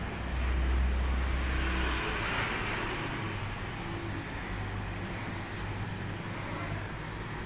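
Low, steady rumble of a motor vehicle or road traffic, loudest about a second in, then settling to a lower hum.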